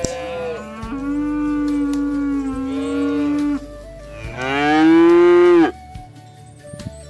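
Cattle mooing: the tail of one moo at the start, then a long, even moo, then a louder moo that rises in pitch.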